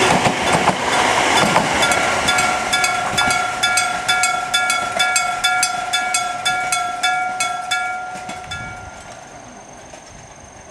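A train running past, followed by the level crossing's electric bell: a hammer striking a metal gong in a quick, even rhythm, each strike ringing on. The bell stops about nine seconds in, once the crossing clears.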